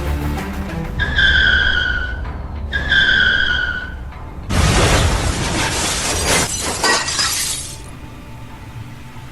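Car crash sound effect: two tyre screeches of about a second each, then a crash with shattering glass lasting about three seconds, over background music.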